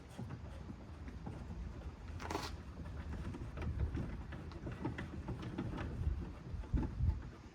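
Scraping, clicks and knocks of hand work on a van's rear light cluster, with one short rasping scrape about two seconds in.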